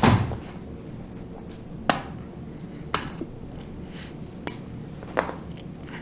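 Sharp plastic-and-glass clicks and taps from an iPhone 5's screen assembly and body being handled and set down while the screen is re-seated. There are about five separate clicks, the loudest at the very start.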